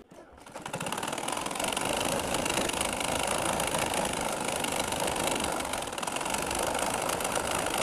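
Black Singer sewing machine running at a steady, fast stitching pace while sewing the second row of a skirt hem. It picks up speed over the first second, then runs evenly.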